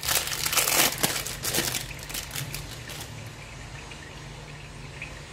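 Thin plastic wrapper crinkling as a processed sandwich-cheese slice is peeled out of it, loudest in the first two seconds, then fading, over a low steady hum.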